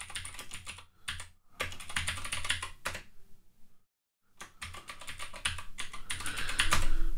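Computer keyboard being typed on: two quick runs of keystrokes with a pause of about a second and a half between them, as a terminal command and then a password are entered.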